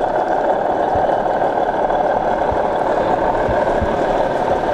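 O gauge model diesel locomotive in BR blue running with a coach, giving a steady engine-like drone with a few soft low knocks.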